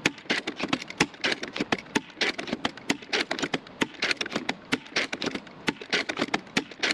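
Rapid, irregular sharp clicks and taps of hard objects, several a second, with no steady tone beneath them.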